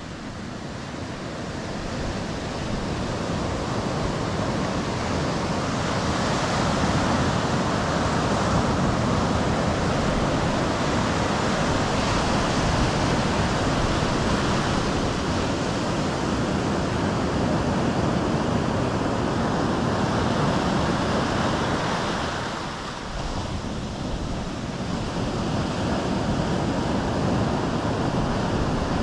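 Sea surf breaking and washing up the beach: a continuous rushing of waves that fades in over the first few seconds, eases briefly about two-thirds of the way through, then swells again.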